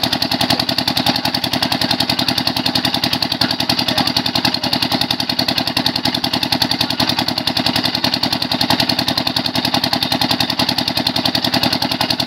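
A 7.5 hp pump-set engine running steadily with a fast, even beat. It drives the water pump that flushes the borehole during hand drilling.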